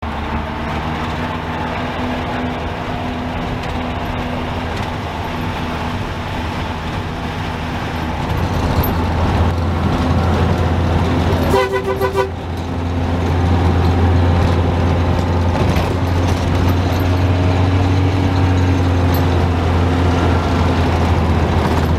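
A large vehicle's engine running steadily, heard from inside the cab with a strong low hum. It grows louder about a third of the way in. About halfway through, the horn sounds once briefly, then the engine pulls louder again.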